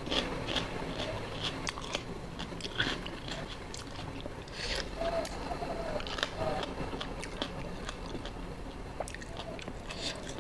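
Close-up chewing and crunching of spicy seafood papaya salad, with irregular crisp clicks and bites throughout.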